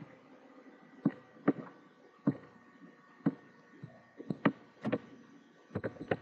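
Computer mouse and keyboard clicks: single sharp clicks about a second apart, then a quick run of keystrokes near the end.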